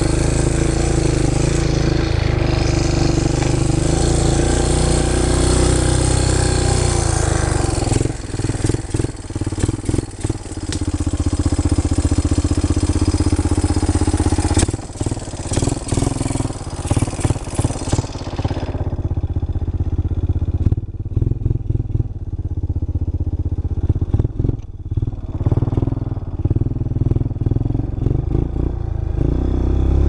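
Four-wheeler (ATV) engine running under way on a rough dirt trail. It runs steadily for the first several seconds, then turns choppy and uneven as the throttle comes on and off, and a rushing noise over it fades out about two-thirds of the way through.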